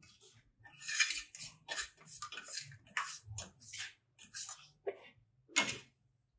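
Steel float scraping wet cement mortar on concrete stair steps: a dozen or so short, uneven strokes, the loudest about a second in and near the end.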